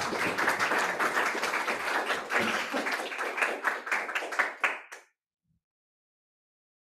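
Audience applauding, the claps thinning out toward the end before the sound cuts off suddenly about five seconds in.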